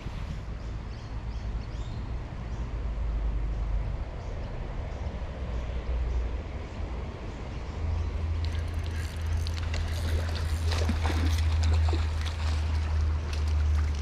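A steady low rumble, growing stronger about halfway through, with clothing and grass rustling and scattered clicks over the last several seconds as the angler gets up and moves to the bank's edge.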